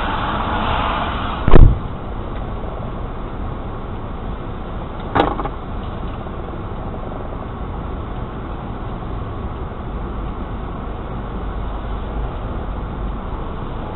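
Steady low rumble of traffic and a running car heard from inside a car cabin, broken by a very loud heavy thump about a second and a half in and a lighter thump around five seconds in.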